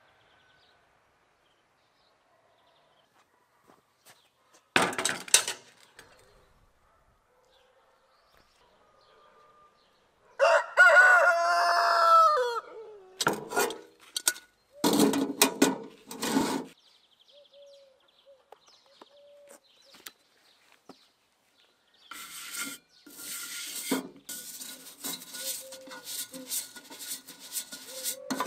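A rooster crows once, about ten seconds in, the loudest sound here, ending on a falling note. Short clatters of cast iron cookware being handled come before and after it. From about two-thirds of the way through, a stiff plastic brush scrubs the paste-covered side of a cast iron cauldron with a steady rasping scrape.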